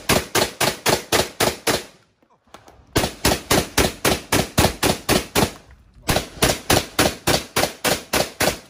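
Rapid strings of shotgun fire, shots about a fifth of a second apart, in three runs broken by short pauses about two seconds and six seconds in.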